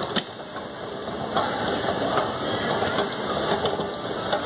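An escalator running, a steady mechanical noise, with one light knock just after the start.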